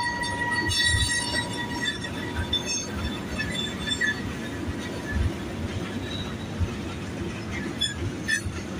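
Coal train cars rolling past with a steady low rumble and occasional clunks, a high metallic wheel squeal fading out in the first couple of seconds and short squeals again near the end.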